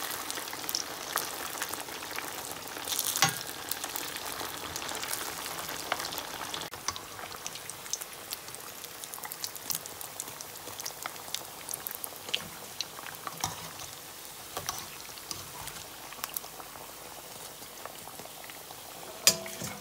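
Bulgur, potato and meat croquettes deep-frying in hot oil, sizzling and crackling steadily, with a few louder sharp clicks, one about three seconds in and one near the end.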